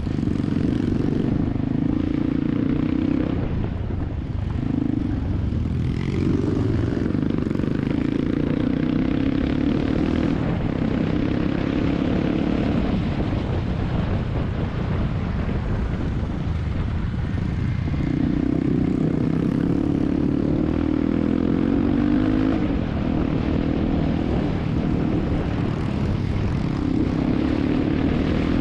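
Motorcycle engine running under way, its drone wavering in pitch and dropping back for a few seconds in the middle, over rumbling wind noise on a helmet- or bike-mounted action camera.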